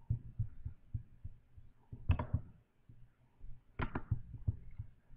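Computer mouse clicking: two sharp clicks, about two and four seconds in, over faint irregular low knocks.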